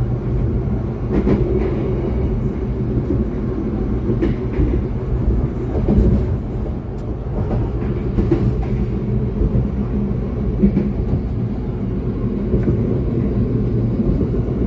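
Steady low rumble of a moving passenger train heard from inside an INKA stainless-steel executive coach, with a few faint knocks from the wheels and rails.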